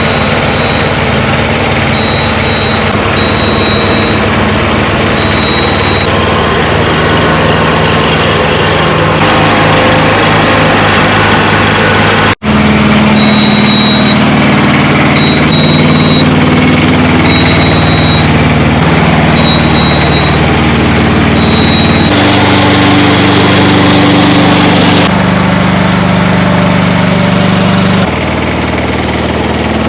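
An engine running steadily, its low pitch shifting in a few steps, with a brief dropout about twelve seconds in.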